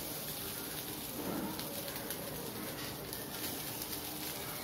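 Low, crackly sizzling of hot oil in a kadai as cooked rice is tipped in on top of fried onion, garlic and dried red chillies.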